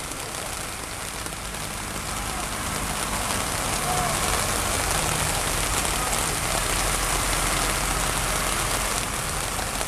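Heavy downpour of rain hissing onto a flooded street, with tractor engines running as tractors drive past through the standing water; the engines grow louder about three seconds in.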